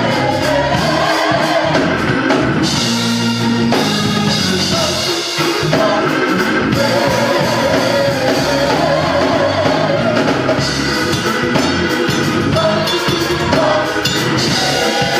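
Gospel choir singing with a drum kit and cymbals playing along.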